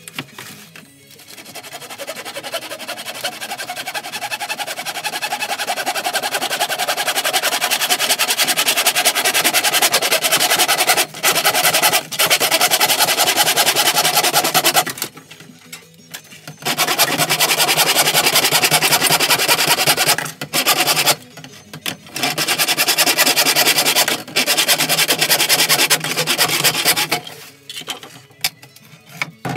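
Hand saw cutting through a white plastic tube, a loud rasping of the teeth in long runs of quick strokes with a few short pauses. It builds up over the first few seconds and stops shortly before the end.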